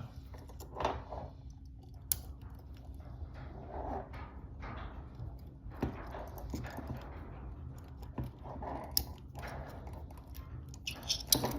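Faint small clicks and scrapes of a lock pick working inside a handcuff keyhole, with a few sharper ticks scattered through.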